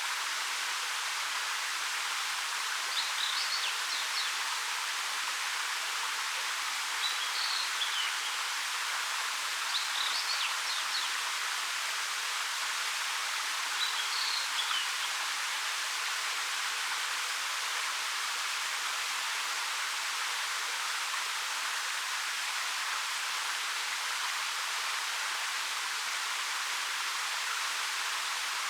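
Steady rushing of a 13 m waterfall falling over rock, an even hiss of water. Short high bird chirps come four times, a few seconds apart, in the first half.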